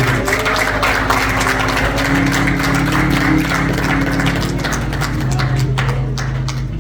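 Church organ holding soft sustained chords that change a few times, under a murmur of congregation voices and the shuffling and tapping of people moving.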